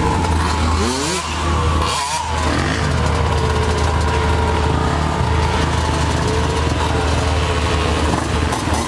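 Small dirt bike engines running and revving, rising and falling in pitch during the first couple of seconds and then running more steadily. A steady low engine drone from the side-by-side carrying the camera runs underneath.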